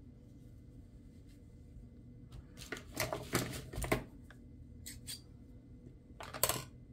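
Scissors cutting black cotton cord, with the cord and scissors handled on a craft mat: a few short rustling and clicking sounds, the loudest just before the end.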